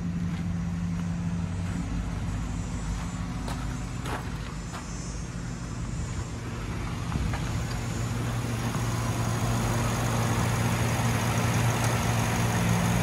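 Ford F350's 6.2-litre gas V8 idling steadily, growing louder toward the end.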